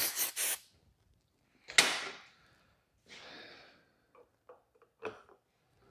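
Short hissing bursts from an aerosol can of white lithium grease being sprayed onto the exhaust expander, the strongest about two seconds in, followed by a few light clicks and knocks as the tool is handled.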